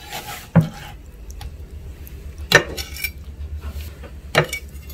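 Kitchen knife and sliced boiled pork knocking on a wooden cutting board and a ceramic plate: three sharp knocks and clinks, about two seconds apart.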